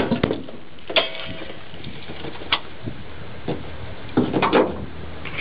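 Hood of a 1995 Nissan Skyline being released and raised with the engine off: a few sharp clicks and knocks, then a short clatter near the end.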